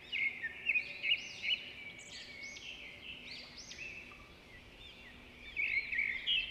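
Birdsong: a continuous run of short, clear whistled phrases that rise and fall, overlapping one another.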